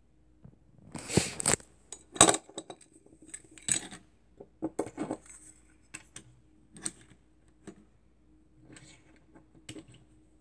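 Two die-cast metal toy vans being turned over by hand and set down on a hard desk top: a string of sharp clicks and clatters, the loudest in the first few seconds, then lighter taps as they are put back on their wheels.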